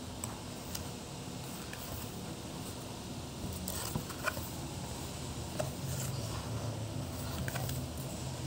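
Pages of a picture book being turned by hand, with a few light clicks and paper rustles over a steady low background hum.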